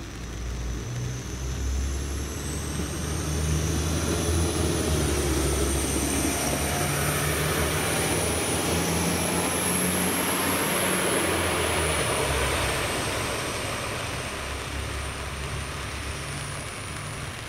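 Diesel multiple unit passing close by and pulling away, its engine running with a high whine that wavers in pitch. The sound builds over the first few seconds and fades after about 13 seconds as the train recedes.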